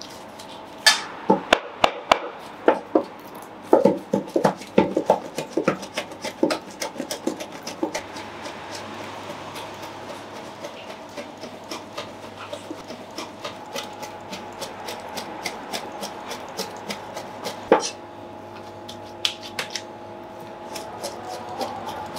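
Large curved cleaver chopping diced mutton on a cutting board, mincing it by hand. First come separate heavy chops, then a quicker, lighter run of chopping, with one hard chop near the end followed by a brief pause.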